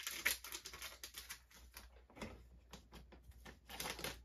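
Irregular clicks, taps and rustles of handling on a tabletop as a bag of paydirt is moved aside.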